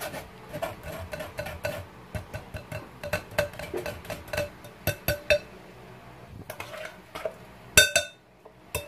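A spoon stirring and scraping juice pulp in a mesh strainer set in a glass bowl: irregular light clinks with a ringing note. A louder clank near the end, and another just after, as the strainer is lifted out.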